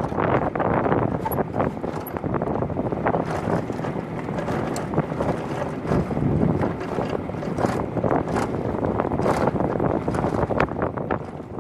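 Class 3 land yacht under sail over concrete: a steady rush of wind on the microphone mixed with the rumble of its wheels, with scattered light knocks and clicks.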